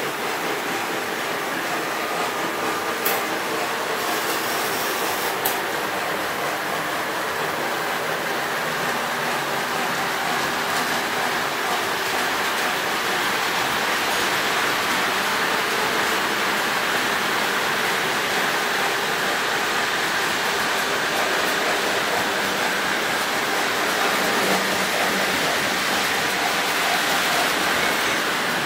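Model trains running on the layout's track: a steady whirring noise, with two brief clicks a few seconds in.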